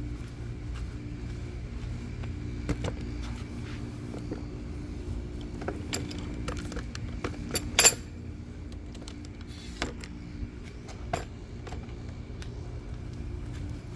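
Handling noises: scattered clicks, clinks and knocks over a steady low hum, with one sharp bang about eight seconds in.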